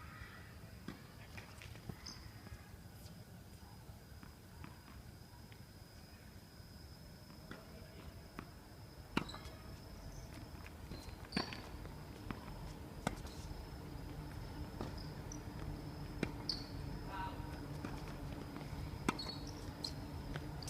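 Sharp, isolated ball strikes in a tennis match, coming irregularly every two or three seconds from about eight seconds in, over a faint steady high tone.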